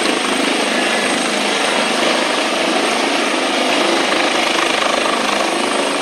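Airbus H145M helicopter hovering low, its rotor and turbines making a loud, steady rush.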